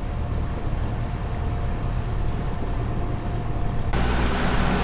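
Steady low hum of a Helia 44 catamaran's twin diesel engines running at slow speed, with wind and water noise. About four seconds in the sound changes abruptly to a louder hiss over a different low hum.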